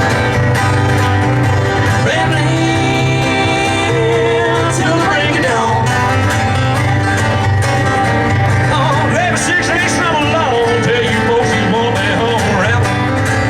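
Bluegrass-style country music with guitar and banjo, playing at a steady level.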